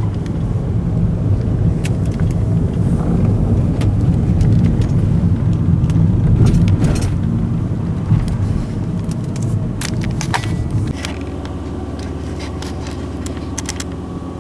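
Car engine and road rumble heard from inside the cabin while driving, with scattered light rattles and clicks. About eleven seconds in the rumble drops to a quieter, steadier hum.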